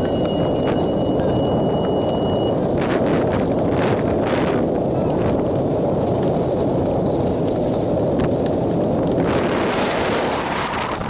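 Wind buffeting the camera microphone: a loud, steady low rumble. A thin, steady high tone sounds for the first two and a half seconds, then stops.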